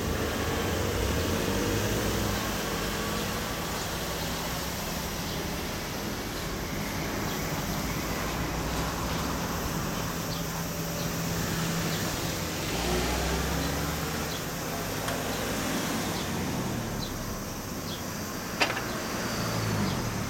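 Classic motorcycle engine running at a low, steady idle, with a change in pitch a little past the middle and a sharp click near the end.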